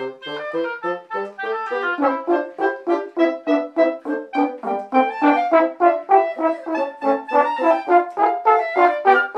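A small wind ensemble of French horn, bassoon and clarinets playing a lively piece in short, detached notes, about four to five a second, with lower parts joining about two seconds in.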